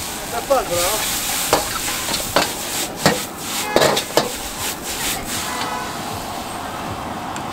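Noodles sizzling in a wok over a gas burner while a metal ladle scrapes and clanks against the wok several times as they are tossed. The sizzle eases toward the end as the wok is tipped over a plate.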